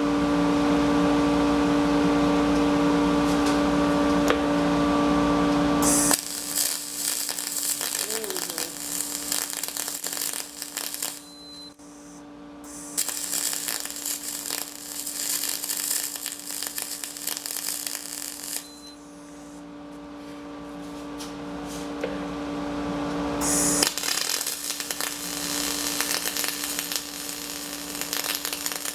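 Aluminum MIG welding with a Tweco spool gun on a Thermal Arc 211i. The arc hisses and crackles in three runs of about five seconds each, with short pauses between, over a steady hum.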